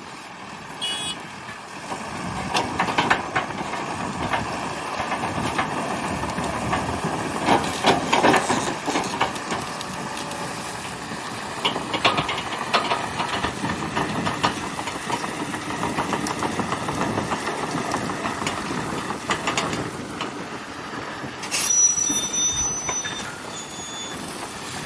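Diesel cane-loading machinery running steadily, with irregular knocks and clatter as whole-stick cane is handled. A few short high beeps sound near the end.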